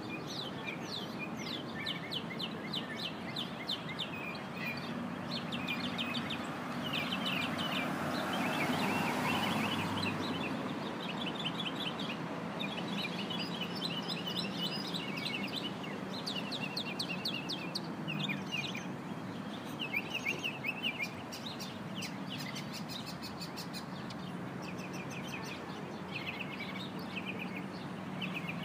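Mockingbird singing: a long run of varied phrases, each a quick series of repeated chirps, with short pauses between, over a steady low background hum. A hiss of noise swells and fades about eight to ten seconds in.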